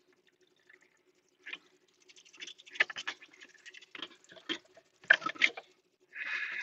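Water from a handheld sink sprayer spattering in short, irregular spurts on a bamboo cutting board and into the sink as the board is rinsed. A faint steady hum runs underneath.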